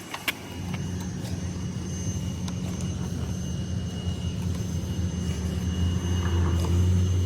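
Steady low rumble of wind buffeting the phone's microphone while riding a bicycle, building slightly toward the end, with a few light clicks.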